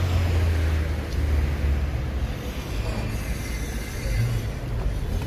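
City street traffic: a low engine rumble, strongest in the first two seconds and again briefly near the end, over a steady background of street noise.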